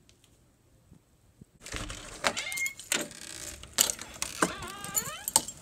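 Faint room tone, then about two seconds in, hard-soled boot steps and knocks at a doorway, with a short wavering creaking squeal near the end.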